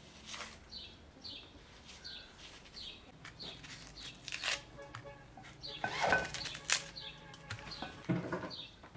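Kitchen knife scraping and cutting the dry, papery skin off an onion: irregular crackles and scrapes, with a few sharper clicks about six to seven seconds in. Behind it a bird repeats a short chirp, under twice a second.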